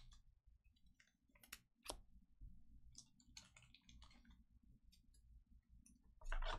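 Faint, irregular light clicks and taps, with a louder knock near the end.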